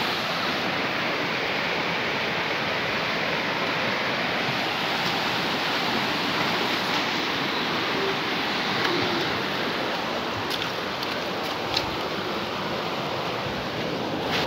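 Steady rush of river water pouring over a concrete ledge as white water, with a short tap about twelve seconds in.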